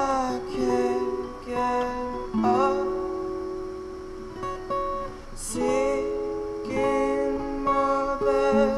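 Acoustic guitar strumming chords every second or so, each one left to ring out.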